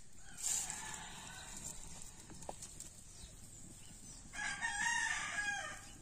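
Rooster crowing twice, a fainter crow near the start and a louder one in the second half, each about a second and a half long.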